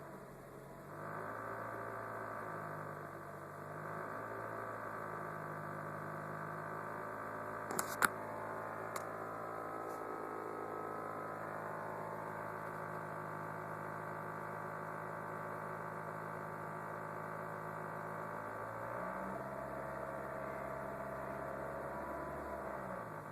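Peugeot 207 engine running cold at idle with a steady vibrating hum. Loose power-steering fluid pipes vibrating turned out to be the cause. A couple of sharp clicks come about eight seconds in.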